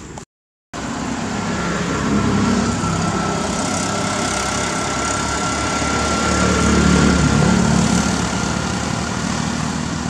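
Car engine and tyre noise from road traffic passing close by, swelling to its loudest about six to seven seconds in, after a brief dropout just after the start.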